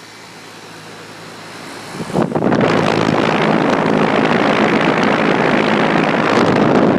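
Outdoor unit of a Ducane central air conditioner running with a low steady hum of the compressor; about two seconds in, a loud steady rush of air from the unit's vent sets in.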